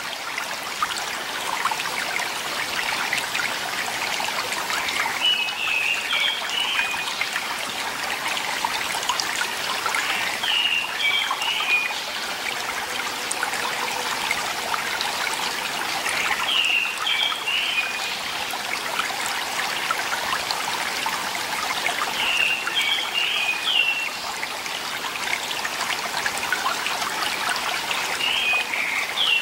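A shallow mountain stream trickling and splashing steadily over rocks, where a thin stream of water falls down a boulder face. A small bird's short, high call phrase repeats five times, about every six seconds.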